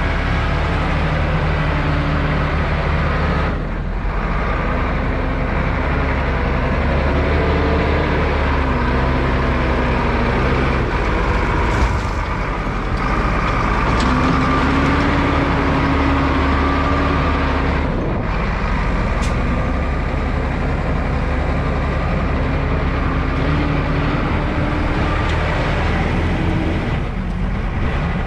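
Massey Ferguson 8480 tractor's six-cylinder diesel engine running steadily, its pitch shifting up and down as the engine speed changes, with brief dips about 4, 18 and 27 seconds in.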